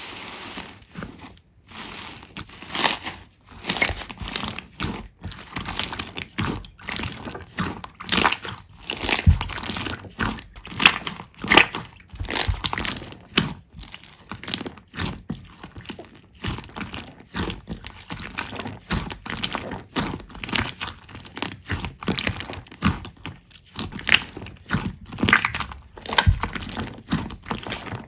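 Slime being squeezed and pressed by hand, giving a constant irregular run of sticky crackles and pops.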